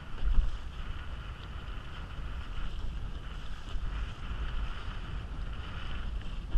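Water rushing and splashing along the hull of a small Alcort Sunfish sailboat moving fast under sail, with wind buffeting the microphone; one loud buffet about half a second in.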